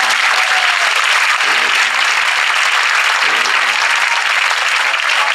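Theatre audience applauding, loud and steady, right after the final music number ends.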